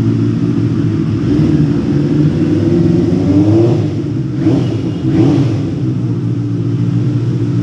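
Motorcycle engine idling steadily, blipped up in revs briefly about four and five seconds in.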